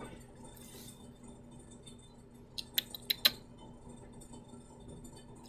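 Faint room tone with a steady low hum; about halfway through, a quick run of about five small sharp clicks.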